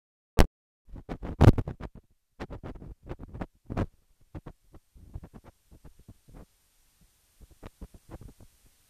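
Faulty camcorder audio: irregular clusters of scratchy crackles and thumps stand in for the sound, with short silent gaps between them.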